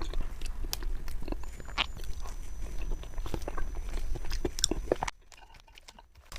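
Close-miked eating: bites and chewing with many small crunchy clicks, which stop about five seconds in.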